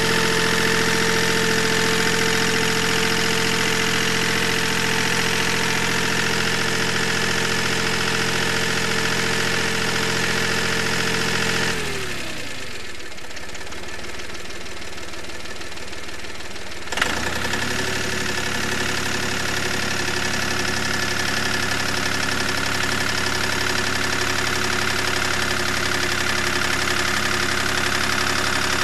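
Goldoni 236 articulated compact tractor's engine running steadily. About twelve seconds in its note falls away as the engine winds down. About five seconds later it comes back at its former speed, with a sharp click.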